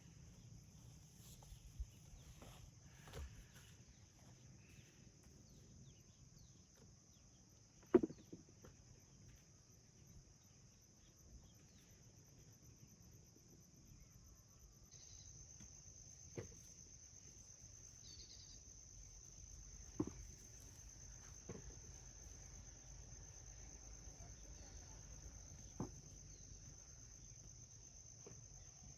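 Steady high-pitched chirring of crickets or similar field insects, faint, growing a little louder about halfway through. A few scattered short knocks, the sharpest about eight seconds in.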